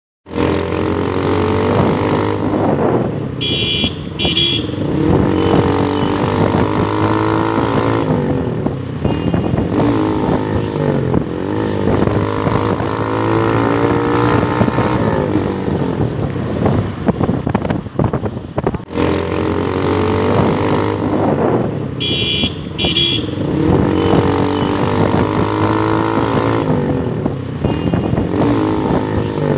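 Motorcycle engine running and revving up and down through the gears, with a short high double beep about four seconds in and again about twenty-two seconds in. The same stretch of sound repeats about every eighteen seconds, as a looped track does.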